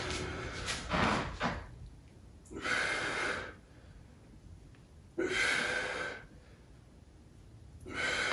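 A person breathing out hard three times, about every two and a half to three seconds, in time with a dumbbell exercise. A few short knocks come in the first second and a half.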